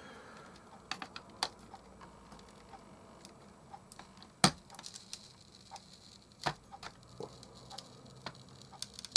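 Scattered small clicks and knocks of a plastic clock-radio case and its parts being handled and worked at, with a sharp knock about four and a half seconds in and another about six and a half seconds in.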